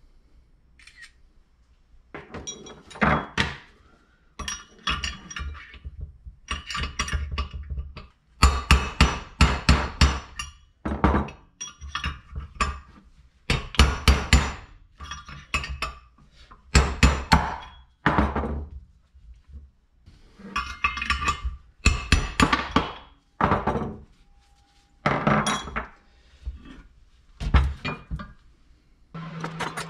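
Hammer tapping a steel drift to drive a wheel bearing out of the aluminum rear wheel hub of a Yamaha Virago 1000: runs of quick metal strikes with short pauses between them. Slow going, as the drift has to find the lip of the bearing's inner race past the hub spacer.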